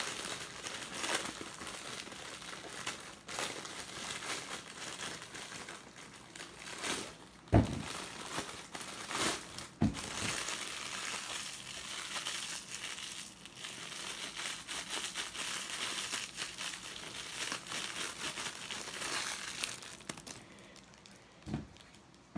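Dry new sponges squeezed and worked by hand, giving a dense, steady crinkling crackle. Two soft low thumps come about a third and almost half way through, and the crackle fades out shortly before the end.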